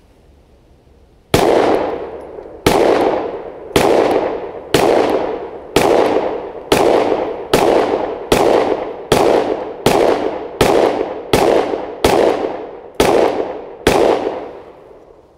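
Sig Sauer M17 9mm service pistol fired in a steady string of single shots, roughly one every two-thirds of a second, starting about a second and a half in. Each report trails off briefly.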